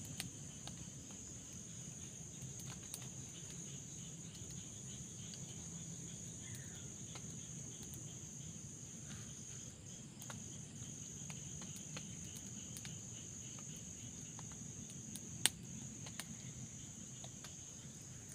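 Night-time chorus of crickets: a steady high-pitched trill running on, over a low even rush. Scattered small clicks and crackles come through it, with one sharp click about fifteen seconds in.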